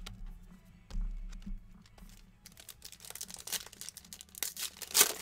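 Foil trading-card pack being torn open and crinkled by hand: scattered clicks and taps first, then crinkling from about halfway through, loudest in a sharp crackle near the end.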